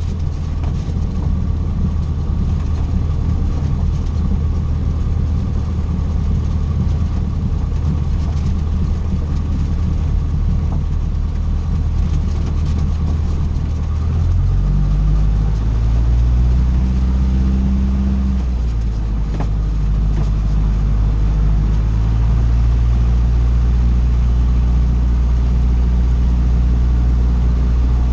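Cessna 150's four-cylinder Continental O-200 engine running steadily. About halfway through, and again a few seconds later, its note shifts in pitch and grows slightly louder.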